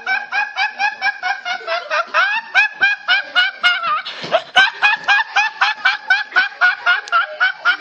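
A flock of domestic waterfowl calling continuously in a rapid, chattering string of short nasal honks, about five or six a second, several birds overlapping.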